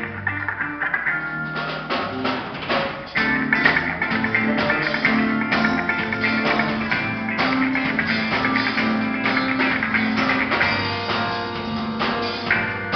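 Live band playing an instrumental passage at a soundcheck, with guitar strumming to the fore; the music gets fuller and louder about three seconds in.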